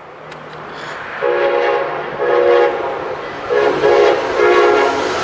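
A passenger locomotive's air horn sounds four blasts of about half a second to a second each as the train approaches. The blasts start about a second in, over a growing rumble from the train.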